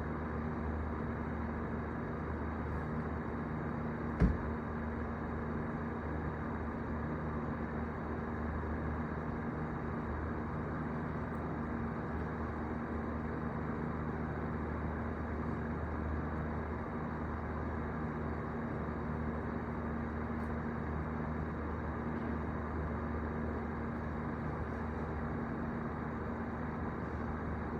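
Steady low hum over a constant noisy background, with one sharp knock about four seconds in.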